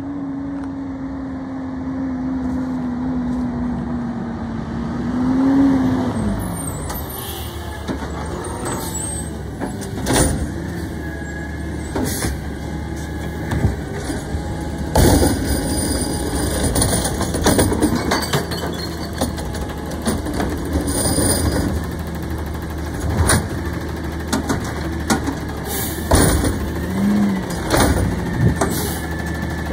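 Automated side-loader garbage truck: its diesel engine runs, dropping in pitch and then rising as the truck pulls up, and then idles through a series of sharp metal clanks and knocks as its gripper arm handles the curbside carts.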